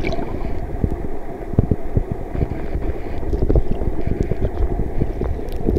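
Stream water heard underwater through a submerged camera: a steady, muffled low rushing with many small clicks and ticks.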